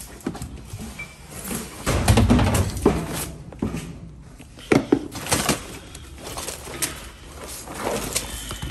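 Rummaging through a pile of belongings: rustling of bags and clothing with scattered knocks and clicks as items are picked up and moved, and a dull thump about two seconds in.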